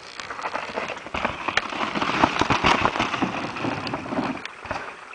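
A mountain bike rolling past close by on a snowy trail and onto a wooden plank bridge: tyres crunching and the bike rattling, with many small clicks. It is loudest in the middle and then fades as the bike moves away.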